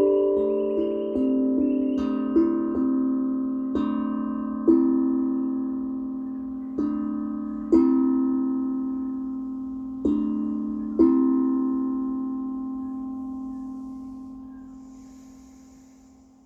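A melodic instrument playing a slow run of single ringing notes that step downward in pitch, the notes spacing out. After the last note, about eleven seconds in, it is left to ring and fade away.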